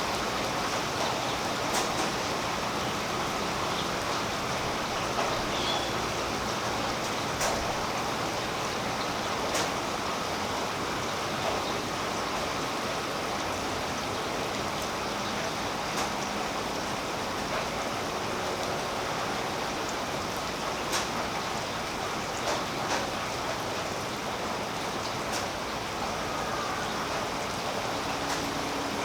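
Steady rain falling on tree leaves, a continuous patter with louder single drops ticking every few seconds.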